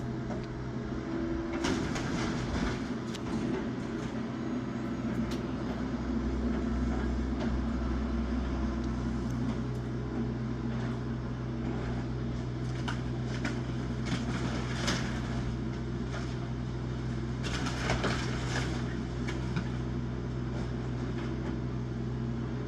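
Small excavator's diesel engine running steadily, with intermittent cracking and crunching as the house's wood and debris break apart under the machine.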